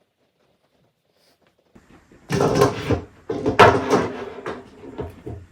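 Old golf clubs clattering and knocking against each other and the bag as they are handled, with rustling. It starts after about two seconds of silence.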